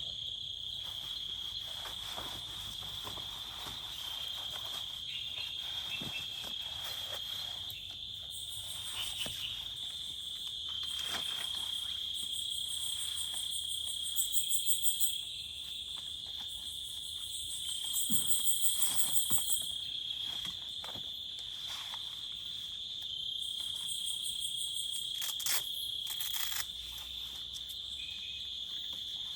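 Insects calling: a continuous high, steady trill, with two louder bouts of rapid high-pitched pulsing about halfway through and again a few seconds later.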